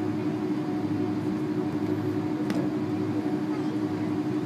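Cabin noise of a jet airliner taxiing, heard from a seat over the wing: a steady engine hum with a held tone. There is a single short click about two and a half seconds in.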